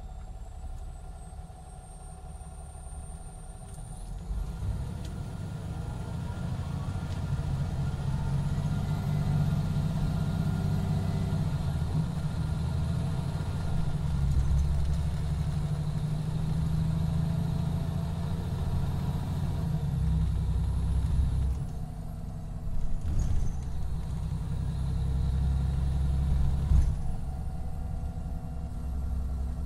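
Cummins ISX12 diesel engine of a 2017 MCI D4500CT coach running, its deep engine sound building over the first several seconds. A thin high whine rises at first and then holds steady. The engine sound falls away briefly twice in the last third.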